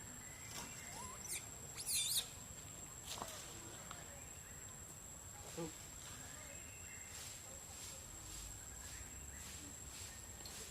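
A few short, high-pitched squeaks and chirps from macaques, the loudest a wavering squeal about two seconds in, over a steady thin high insect whine.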